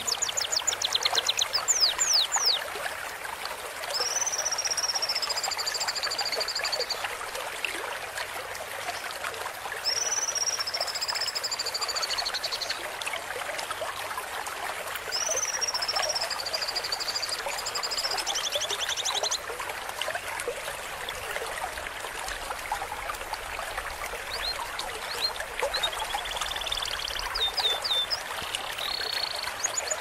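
Songbird training recording laid over a steady trickle of running water, mixing canary, cucak cungkok (greater green leafbird) and lovebird song. It has rapid ticking trills near the start and again near the end, and three long drawn-out whistled phrases that fall slightly in pitch in between.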